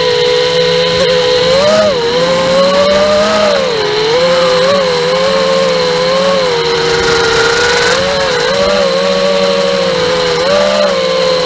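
Furibee Darkmax 220 racing quadcopter's motors and propellers whining in flight, the pitch rising and falling with the throttle.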